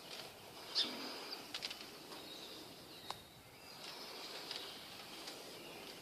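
Quiet outdoor ambience with a few faint, short, high chirps and light clicks scattered through it.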